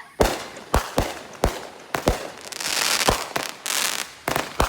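Multi-shot consumer fireworks cake firing in sequence: about eight sharp bangs at uneven spacing, with a crackling hiss in the middle.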